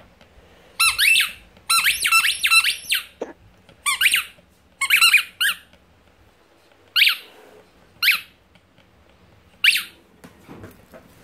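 Squeaky dog toy squeezed by hand again and again, each squeeze giving a short high squeak that bends in pitch. The squeaks come in quick runs over the first five seconds or so, then three single squeaks spaced about a second apart.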